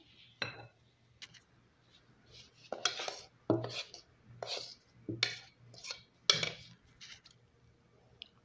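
Metal spoon scraping and clinking against a mixing bowl as flour is stirred into cake batter, in a run of about seven quick strokes.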